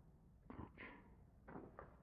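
Near silence, with four faint, short knocks spread across the two seconds.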